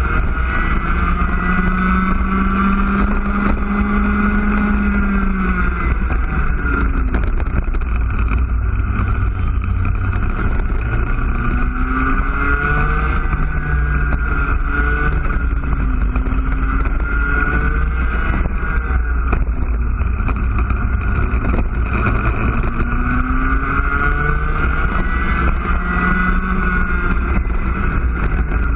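Single-cylinder two-stroke IAME Cadet kart engine heard from the onboard camera at full throttle round a lap. Its pitch climbs and holds along the straights and drops away into the corners, several times over, with a steady low rumble underneath.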